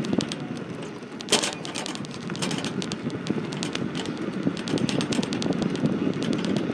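Metal wire basket rattling with many irregular sharp clicks while riding along a road, over a steady rumble of wheels on the tarmac. There is one stronger knock about a second and a half in.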